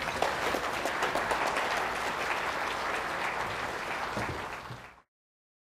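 Audience applauding. The applause fades out in the last second or so.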